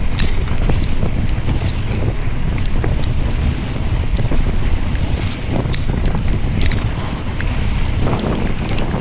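Loud wind buffeting the microphone while riding a bicycle, a steady low rumble with scattered sharp ticks.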